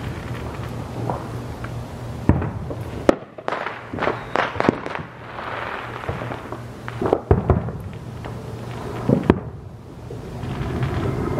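Aerial firework shells bursting in a display: sharp booms at irregular intervals. A quick cluster of bangs and crackle comes around the middle, and there are single booms later on.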